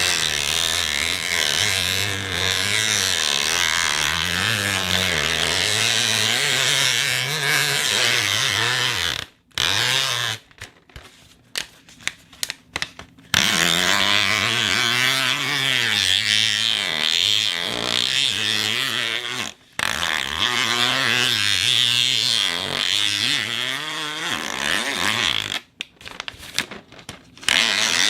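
Squeaky packing material rubbed and squeezed by hand as a foley sound effect, a continuous scrunching with wavering squeaks. It stops briefly about nine seconds in with a few light clicks, again about nineteen seconds in, and once more near the end.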